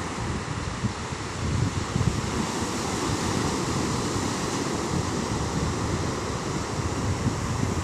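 Ocean surf washing steadily on a beach, with wind buffeting the microphone in uneven low rumbling gusts.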